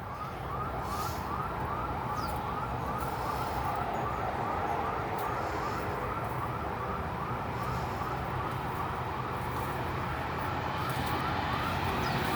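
Building intruder alarm siren sounding: a short rising whoop, repeated steadily about twice a second.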